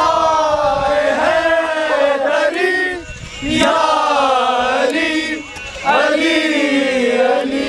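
A man singing without accompaniment in long, wavering held notes, in phrases a few seconds long with short breaths between them.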